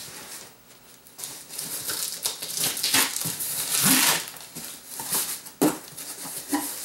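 Packing tape being ripped off a cardboard box in several pulls, with the cardboard rustling and scraping as the flaps are opened.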